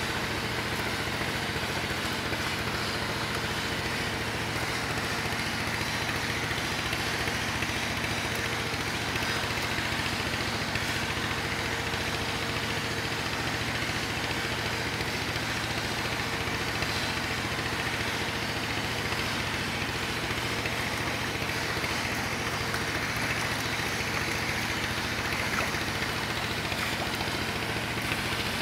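An engine running steadily at one even speed, a constant drone that does not change.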